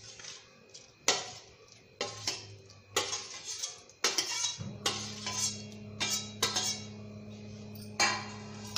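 Chopped tomatoes tipped from a steel bowl into a stainless-steel pot of sambar, with repeated metal clinks and knocks as the bowl and then a steel ladle strike the pot's rim during stirring. A steady low hum comes on about halfway through.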